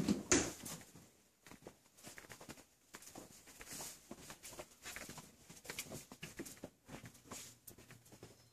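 A door bumping shut right at the start, the loudest sound, then soft, irregular footsteps on carpet with small handling knocks.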